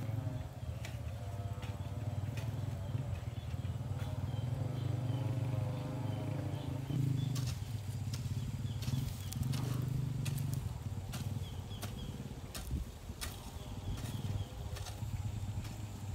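A motor engine running steadily, its pitch wavering over the first half. From about seven seconds in come a series of sharp clicks and faint high chirps.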